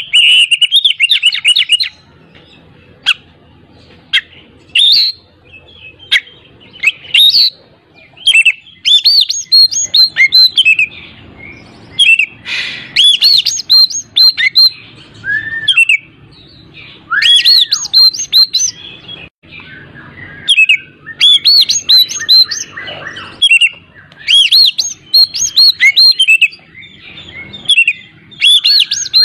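Oriental magpie-robin (kacer) singing hard, in loud phrases of rapid whistled, chattering notes broken by short pauses.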